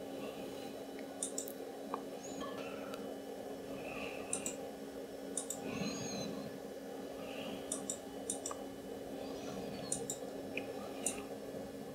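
Computer mouse button clicking a few times, each a sharp press-and-release pair, over a steady low hum.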